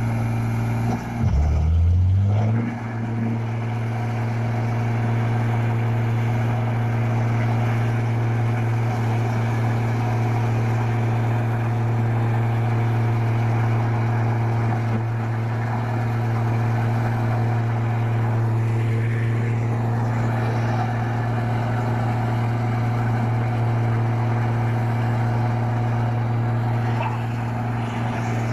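Motor vehicle engine running with a steady low hum. Its pitch dips and then rises about a second in, as the engine revs up.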